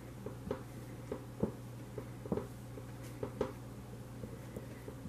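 Dry-erase marker drawing on a whiteboard: faint, irregular short strokes and small taps of the tip against the board, over a low steady hum.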